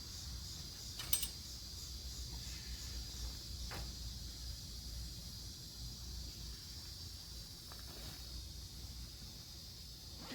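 A steady, high-pitched chorus of insects, likely crickets, under a low rumble, with a sharp click about a second in and a softer one near four seconds.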